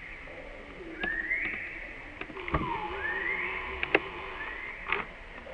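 Animal calls: three short high calls, each rising in pitch, and one lower falling call, with a few sharp clicks between them.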